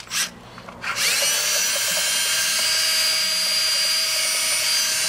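Handheld power drill with a metal bit widening a hole in a plastic part. It spins up about a second in, then runs at a steady speed with a steady whine.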